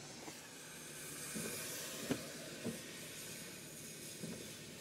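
Steady hiss of road noise inside a moving car's cabin, swelling briefly about a second and a half in, with a few faint taps.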